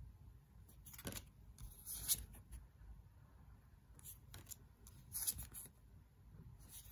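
Thick, matte tarot cards sliding and rustling against one another as they are handled and flipped, in several short, faint strokes, the strongest about five seconds in.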